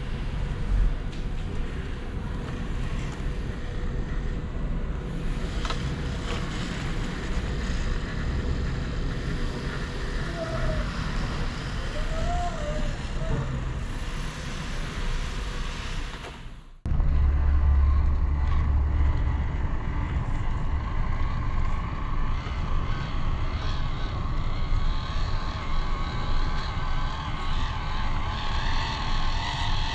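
Wind buffeting the microphone over the whir of a 1:18-scale RC crawler's small electric motor and gears. The sound cuts abruptly about 17 seconds in to a louder stretch with more low rumble.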